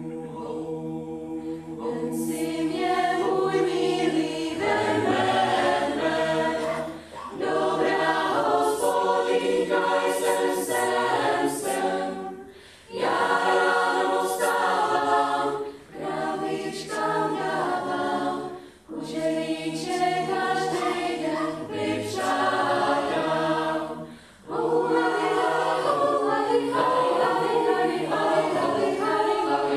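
Mixed choir of young men and women singing a cappella in harmony, in phrases broken by short breath pauses. The sound is thinner at the start and fills out about two seconds in.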